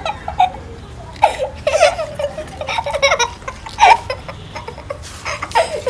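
Young girls giggling and laughing in short, high-pitched bursts, with quieter gaps between.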